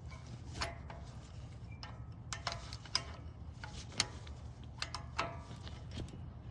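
Scattered light metal clicks and clinks, a few with a brief ring, as the anti-rattle spring brace on a 2022 Toyota 4Runner's front brake caliper is worked into place over the pad pins.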